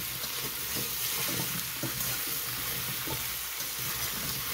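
Cubed butternut squash and onions sizzling in a stainless steel pot as a spoon stirs through them, with a steady hiss and small scraping clicks against the pot.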